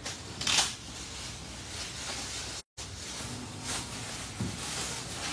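Rustling and handling of speaker packaging during unboxing, with a short, louder rustle about half a second in and softer rustles after. The sound cuts out completely for a moment near the middle.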